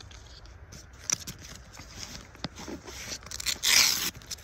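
Fabric rustling and small knocks from a Propper Bail Out Bag being handled, then a short, loud rip near the end as the hook-and-loop flap of an outside pouch is pulled open.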